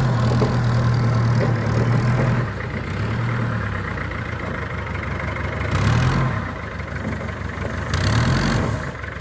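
Vintage truck engine running steadily, its speed dipping and picking up briefly a few times.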